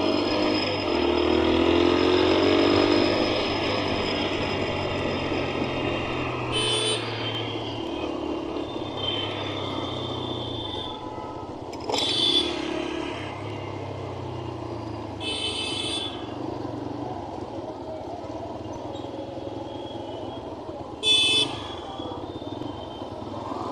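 Motorcycle running along a road in traffic, heard from the rider's position with road and wind noise, its engine pitch rising in the first few seconds. Short vehicle horn toots sound four times.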